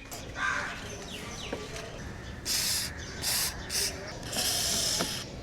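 Aerosol lubricant spray can hissing in four short bursts in the second half, the last one the longest, as lubricant is sprayed onto a car door lock.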